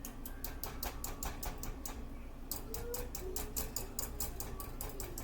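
A whisk clicking quickly and evenly against a bowl, about six strokes a second with a short pause partway through, as chicken broth is mixed into cream of chicken soup.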